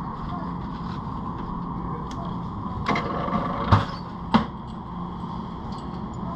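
A few short knocks and clacks of things handled on a shop counter, three of them close together about halfway, the middle one the loudest, over a steady low hum.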